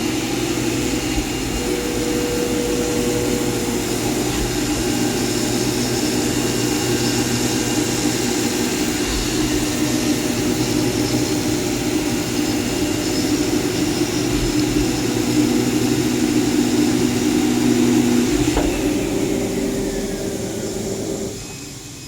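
CNC multi-layer fabric cutting machine running: a loud, steady machine drone with several whining tones that change pitch now and then, dropping away sharply near the end.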